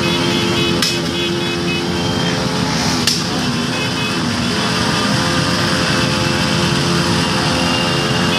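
A pack of small street motorcycles riding together at parade pace, many engines running at once, with horns beeping repeatedly. Two sharp cracks cut through, about a second in and again about three seconds in.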